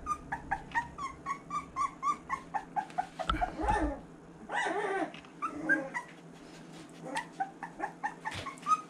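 Three-and-a-half-week-old boxer puppies whimpering in quick, short, high squeaks, about three or four a second, falling quiet in the middle and starting up again near the end. About three seconds in and again about a second later there are two louder, rough, noisy sounds.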